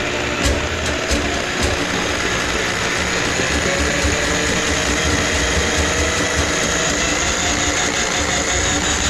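Electric drain-cleaning machine running steadily, its motor spinning the cable to clear grease from a kitchen sink drain line. A few sharp clicks fall in the first two seconds.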